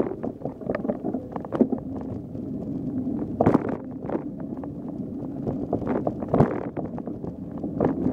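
Mountain bike riding over a bumpy trail: a steady rumble of tyres with frequent rattles and knocks from the bike, two harder knocks about three and a half and six and a half seconds in.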